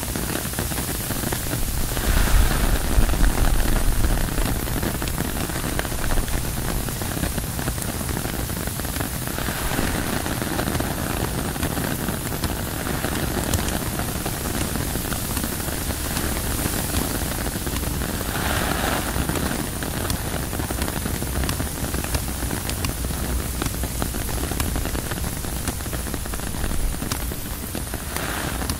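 Rain falling on a tent's fabric: a steady hiss of drops with many small separate taps. About two seconds in, a stronger gust of wind adds a low rumble for a couple of seconds.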